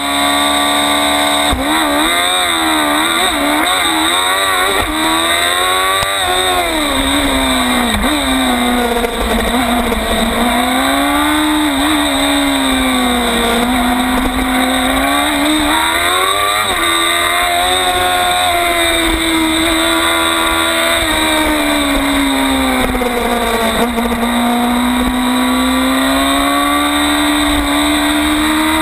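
Onboard sound of a 600cc sport bike's engine at a race start. The revs hold at first, then climb and drop quickly through several upshifts about two seconds in, then rise and fall in long sweeps through the corners.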